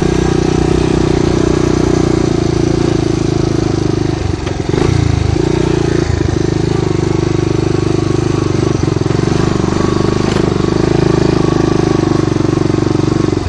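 Honda ATC250ES Big Red three-wheeler's single-cylinder four-stroke engine running steadily, with a brief drop in level about four seconds in.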